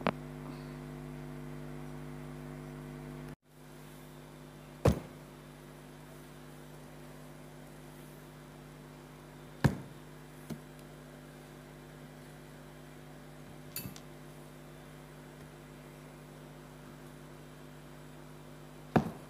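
Steady electrical mains hum, with three sharp clicks spread across it and a short dropout a few seconds in.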